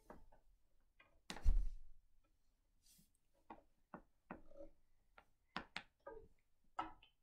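Scattered light clicks and knocks as a violin and its bow are handled between playing, with one louder thump about one and a half seconds in.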